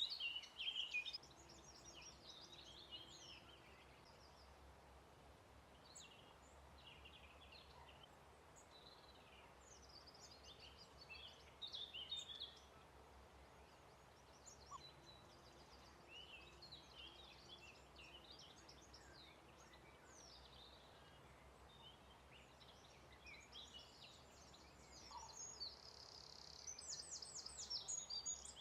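Faint birdsong from several songbirds, short varied chirps and phrases overlapping, with a fast, louder trill starting near the end.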